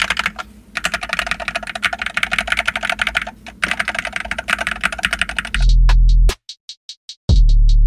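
Rapid typing on a Monsgeek FUN60 magnetic-switch keyboard, a fast stream of key clicks broken by two short pauses. About five and a half seconds in the typing stops and loud music with heavy bass beats starts.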